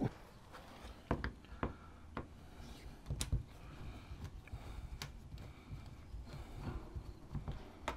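Faint, scattered clicks and taps of a small hand tool working at a light aircraft's aluminium door frame, over a steady low rumble.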